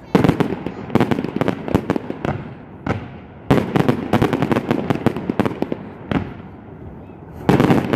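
Fireworks going off in rapid volleys of sharp bangs and crackling. The volleys come in waves: one right at the start, another about three and a half seconds in, and a third near the end, with quieter crackle between them.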